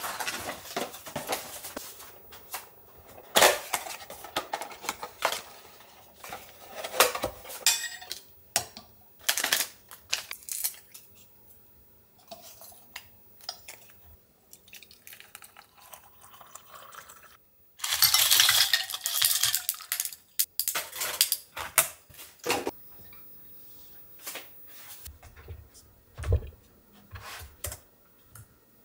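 Ceramic plate, glass mug, stainless steel lid and fork clinking and knocking as they are handled and set down, in many separate strokes. A longer rushing stretch comes about two thirds of the way in, and a soft low thump near the end.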